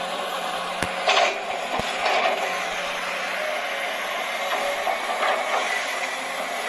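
Huina RC excavator's small electric motors whirring as the boom and bucket move, with a few sharp clicks about one and two seconds in, over a steady hiss.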